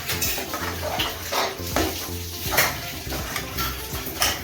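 Spatula stirring and scraping a thick, sticky mixture of melted jaggery and sugar in a cooking pan, in several irregular rough strokes.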